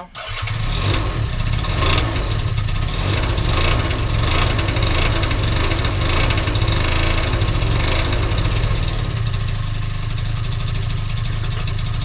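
A 50cc two-stroke scooter engine starts on its freshly fitted lithium battery. It catches almost at once and runs steadily, easing slightly about nine seconds in. It is the first successful start after the carb was cleaned, the tank flushed and a new spark plug fitted.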